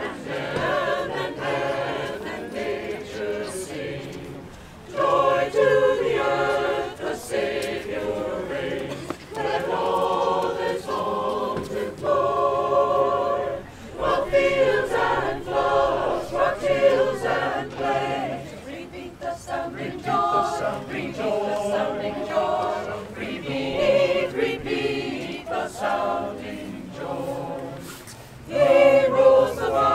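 A choir singing in harmony, in sustained phrases with short pauses between them.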